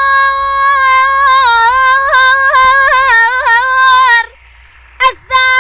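A girl singing unaccompanied in Iraqi Arabic style. She holds one long high note that turns into quick wavering ornaments, breaks off about four seconds in, then starts a new held note near the end.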